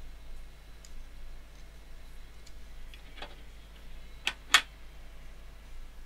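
Small plastic electronics housing and its loose parts being handled on a desk: a few light clicks and taps, then two sharp clicks about a quarter second apart a little past four seconds in.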